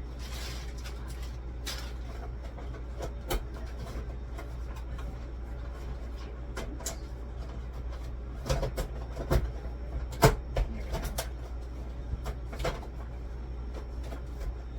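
Scattered knocks and clicks of household objects being handled, with a cluster of louder knocks about the middle, over a steady low hum.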